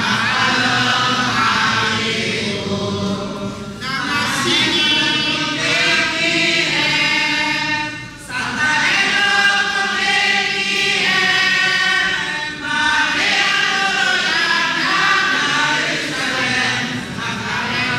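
A group of people singing together, slow drawn-out phrases with brief breaks about 4, 8 and 12 seconds in.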